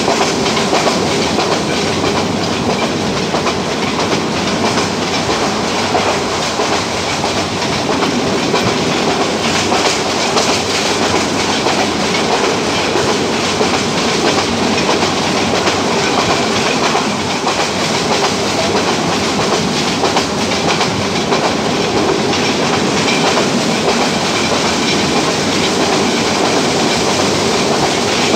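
Mohanagar Goduli passenger train running along the track: a steady, loud rumble and rattle of wheels on rails, with occasional clicks.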